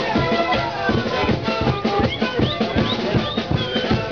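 A sikuri band playing: siku panpipes sounding held notes together over a steady drum beat.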